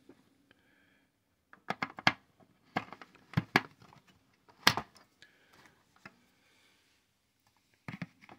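AA rechargeable batteries being pushed into the plastic battery compartment of a Panasonic RF-2400 portable radio: a series of sharp clicks and knocks in short clusters, with a single louder knock near the middle.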